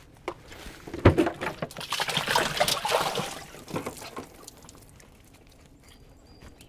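A knock about a second in, then water splashing and pouring off a freshly plucked chicken carcass lifted out of a cooler of water, fading to a trickle after about four seconds.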